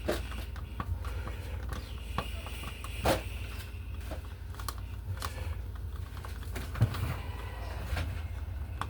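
Small clicks and taps of hand work on a wall outlet as it is pressed into its box and fastened, with a louder knock about three seconds in and another near seven seconds.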